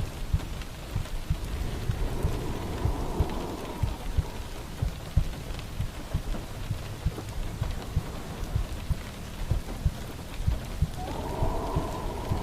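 Rain falling steadily, with frequent low irregular thuds beneath it. A soft breathy sound comes twice, about two seconds in and again near the end.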